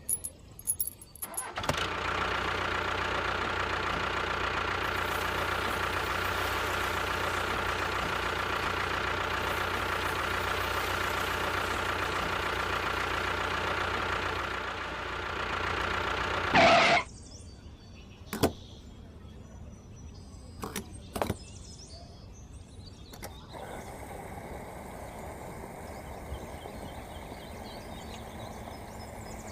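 A motor running steadily at an even pitch for about fifteen seconds, ending with a short loud burst, then a few sharp clicks and knocks, and a fainter steady motor hum starting about two-thirds of the way in.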